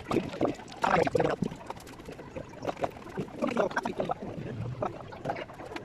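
Indistinct voices talking, mixed with scattered clicks and knocks.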